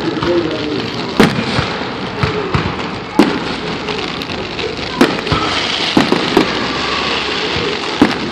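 Fireworks going off: about five sharp bangs spread one to two seconds apart over a steady hiss of noise with crowd voices in it.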